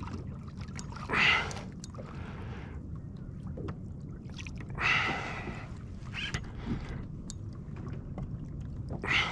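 Water gurgling and sloshing against a plastic fishing kayak's hull, with a steady low rumble and a few short, louder sloshes.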